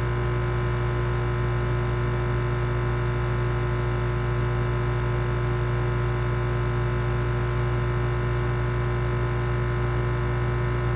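A sleeping hummingbird snoring: a thin, high whistle that glides slightly down in pitch for about a second and a half, four times at about three-and-a-half-second intervals. Under it runs a loud, steady hum, which comes from the camera raising its microphone sensitivity.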